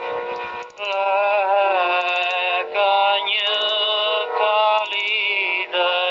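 Archival 1976 recording of a traditional Arbëresh song: singing in long held notes with vibrato, with short bursts of high ticking recurring about every second and a half.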